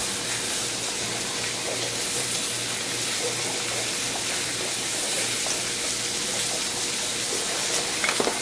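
Filet mignon searing on a flat-top griddle, giving a steady sizzle, with a few light clicks near the end.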